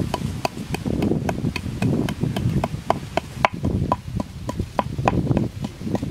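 A quick, uneven series of sharp knocks, about four a second, typical of chopping with a blade on wood.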